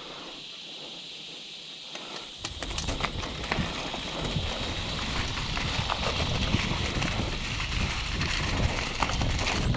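Mountain bike rolling down a rough dirt trail: the tyres crunch over leaves and stones and the bike rattles with many small knocks, with wind rumble on the mounted camera. It gets louder about two and a half seconds in as the bike picks up speed.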